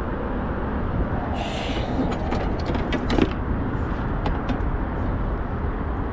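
Steady low rumble, with a run of light clicks and knocks about two to three seconds in as a freshly caught largemouth bass is handled on a measuring board in the canoe.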